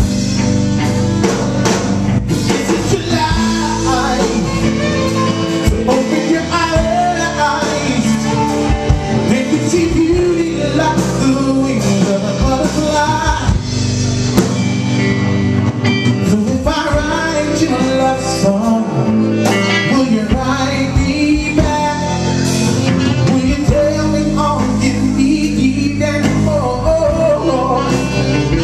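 A band playing a rock-and-roll song with singing, guitar and drums, at a steady beat.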